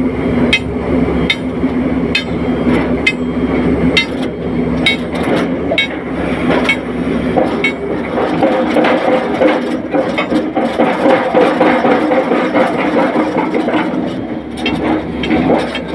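Heavy construction machinery running with a steady engine drone. Over it come sharp metallic knocks, about one or two a second, which thin out after about seven seconds as a steadier mid-pitched whine rises in the machine.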